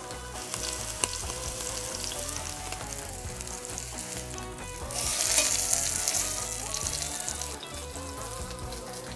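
Beef roast searing in hot oil in a cast-iron Dutch oven, sizzling steadily. The sizzle swells louder for a second or two about five seconds in.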